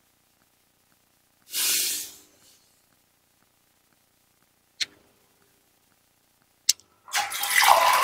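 Water pouring in a kitchen: a short burst about one and a half seconds in, and a longer, louder pour starting near the end. Two sharp clicks fall between them.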